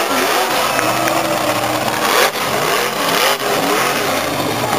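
Monster truck engine revving up and down, its pitch rising and falling repeatedly, with two brief dips in level about halfway through.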